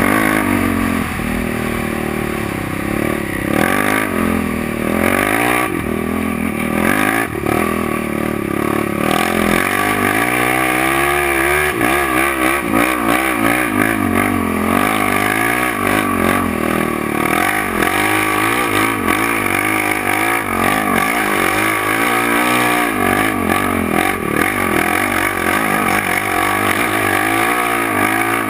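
Yamaha sport quad (ATV) engine running as it is ridden, revs rising and falling again and again as the throttle is worked.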